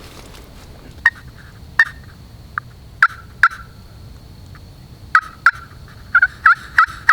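Hen turkey yelps made on a hunter's turkey call: about a dozen short, sharp notes, each dropping in pitch, in two runs with a pause of about a second and a half between them.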